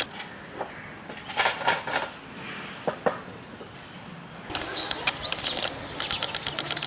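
Dishes and glassware clinking as they are set out on a wooden table, with a few short bird chirps a little past the middle.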